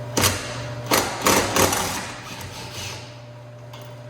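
Four short bursts of a power impact wrench hammering on a subframe mount nut, in the first two seconds, then fading.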